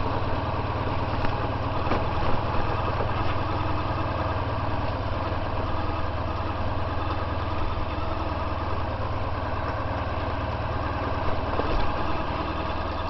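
Honda VFR1200X Crosstourer's V4 engine running steadily at low revs while the motorcycle rolls slowly along a rough track.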